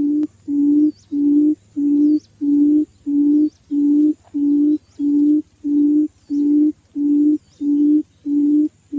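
Quail (puyuh) calling: a steady series of low hooting notes, about two a second, all at one pitch.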